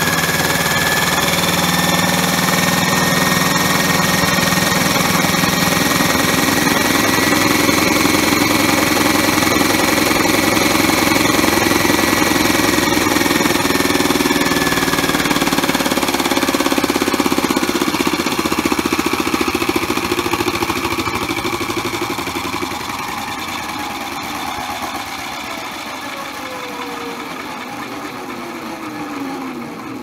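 Modified toy washing machine's motor and drum at full-speed spin, with a loud, steady whine. From about halfway through, the spin winds down: the whine slides steadily lower in pitch and fades as the drum coasts toward a stop.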